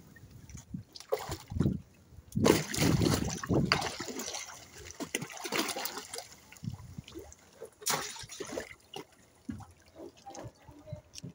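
Tarpon splashing and thrashing at the water's surface as they go for food, in irregular splashes and slaps with quieter spells between. The loudest come about two and a half seconds in, with another sharp splash near the end.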